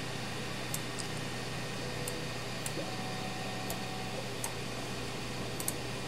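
Faint computer mouse clicks, about eight scattered over a few seconds, over a steady low hum of room noise.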